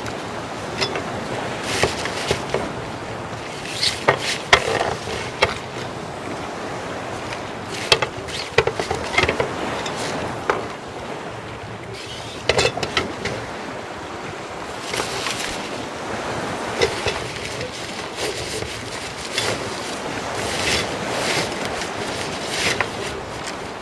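Nylon wind-scoop fabric rustling and its plastic poles clicking and knocking as it is folded and pushed into its storage bag, over steady wind noise.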